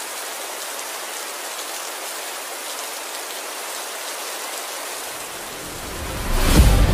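Steady rain falling on a lake's surface, an even hiss of drops on water. Near the end, dramatic music comes in with a loud hit.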